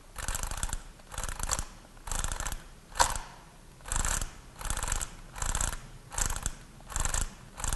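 Solari flip clock's number flaps flipping over one after another as its mechanism is wound forward by the setting knob. Each flap drop is a quick clatter, coming about every two-thirds of a second, with one sharper click about three seconds in.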